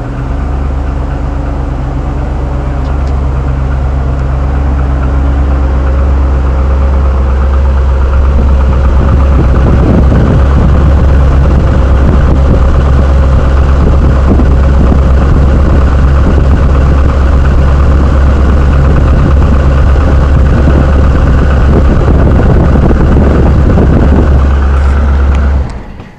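6.0 L LS2 V8 of a 2007 Chevrolet Trailblazer SS running with a rapid rattle, which the owner takes for piston slap. It grows louder about eight seconds in and cuts off abruptly near the end.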